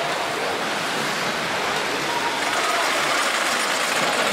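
Water slides running: a steady rush of water pouring down the tube slide runouts into the splash pool, with faint voices in the background.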